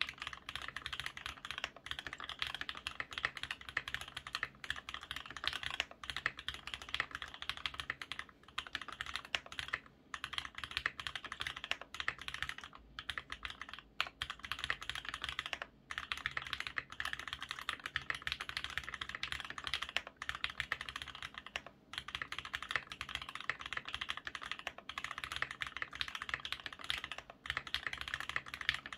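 Fast, continuous typing on a Linworks Montage polycarbonate mechanical keyboard fitted with lubed Everglide Red V2 linear switches and Everglide V2 stabilizers. The keystrokes are a dense run of clicks with a few brief pauses.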